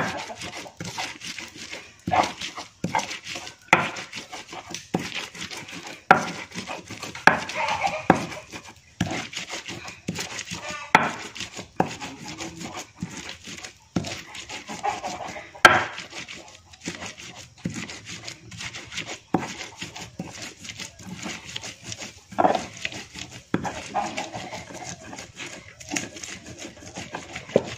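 Raw chilies and salt being pounded and ground by hand on a stone grinder (stone pestle on stone mortar): sharp, irregular knocks about once or twice a second, with rubbing and scraping between them.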